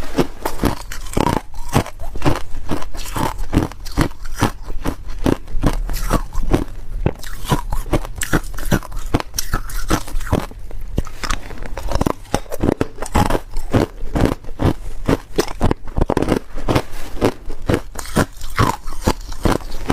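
Ice being bitten and chewed close to the microphone: a rapid, irregular series of loud crunches as hard ice cubes crack and are ground between the teeth.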